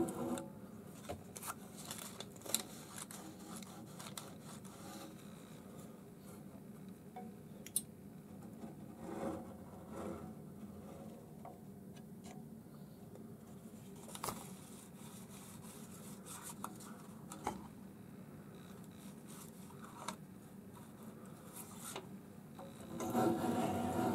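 A paper spacer rubbing and rustling as it is slid and handled between a 3D printer's nozzle and its tape-covered build plate while the bed is levelled, with scattered small clicks over a faint steady hum. A louder pitched sound comes in near the end.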